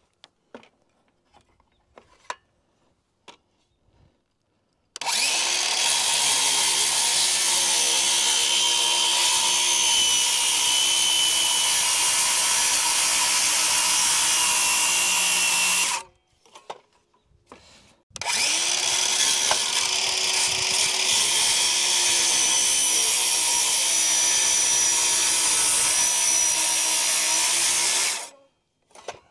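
A few light knocks, then a power tool runs twice for about ten seconds each, with a short pause between. Its motor spins up quickly at the start of each run and then holds a steady pitch.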